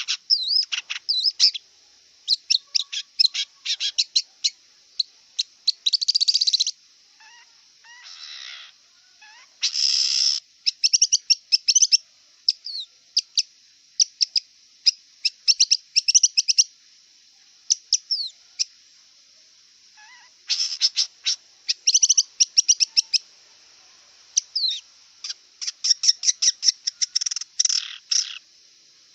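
Long-tailed shrike (cendet) singing: fast runs of short high chirping notes, broken by a few harsh rasping bursts in the first third and a lull of a couple of seconds past the middle.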